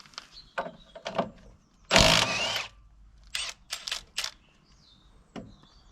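Clicks and knocks of a Milwaukee impact wrench being handled and taken from its case, with one short, louder burst about two seconds in.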